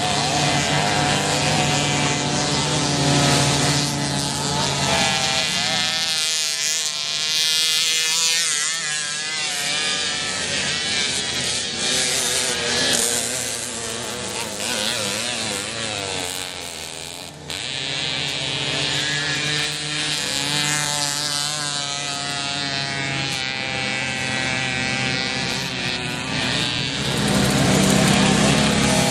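Several racing mopeds' small two-stroke engines buzzing at high revs. Their pitch keeps rising and falling as the riders accelerate and ease off through the corners, and they get louder near the end as one passes close.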